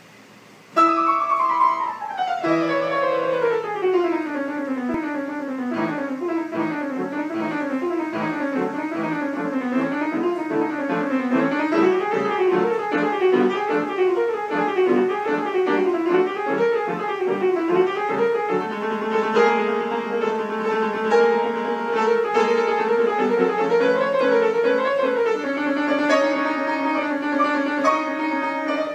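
Instrumental music led by piano: after about a second a long falling run, then rolling up-and-down arpeggio figures, with held string-like notes joining in the second half.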